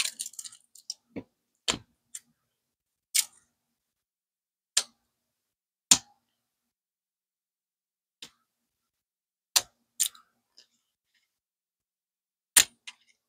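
Irregular sharp crackles and clicks, about a dozen with silence between them, as layers of paper wrapping are picked and peeled off a plastic toy capsule.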